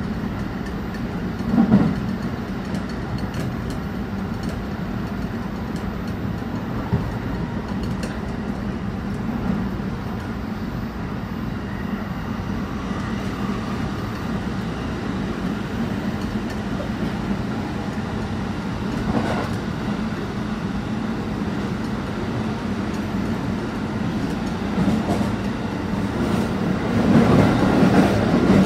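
Steady running noise of a JR Kobe Line Special Rapid train at speed, heard from inside the carriage: wheels on rail and car rumble, with one brief knock about two seconds in. Near the end it grows louder as the train runs alongside and overtakes a Rapid train on the next track.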